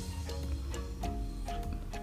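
Soft background music with a few held notes over a low hum, and a few faint clicks.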